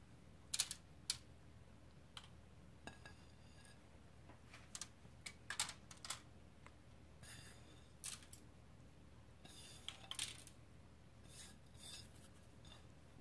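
Faint, irregular light crackles and taps as shredded cheese is sprinkled by hand over spaghetti squash halves on a foil-lined baking sheet, with the foil and a ceramic plate being handled.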